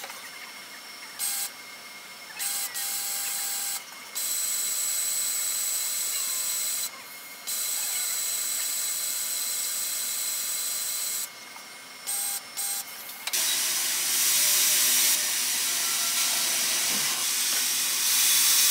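Takamaz XV-3 CNC vertical lathe machining small brass wheels. Coolant spray hisses in spells that cut on and off every few seconds, over a steady high whine from the running machine. About two-thirds through, the hiss becomes louder and continuous.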